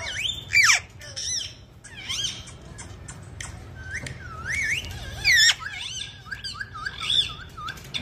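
Parrot calls: a run of shrill squawks and quick rising-and-falling chirps, with two louder squawks about half a second in and about five seconds in.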